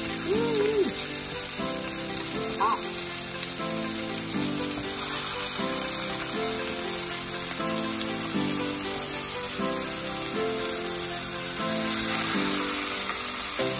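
Raw ground-beef hamburger patties sizzling in hot oil in a nonstick skillet, a steady frying hiss as they are laid in one by one, over light background music.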